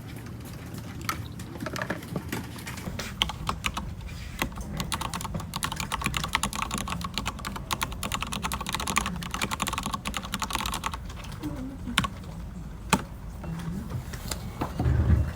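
Typing on a computer keyboard: scattered keystrokes, then a fast, dense run of typing for several seconds, then slower, separate clicks, with a low thump near the end.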